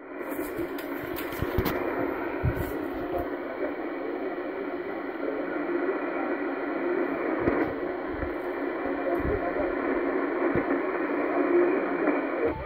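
Shortwave broadcast on 6090 kHz received on a Yaesu FRG-100 communications receiver in lower sideband mode: a narrow, hissy band of static and fading with a voice faintly under it. A few clicks come in the first few seconds.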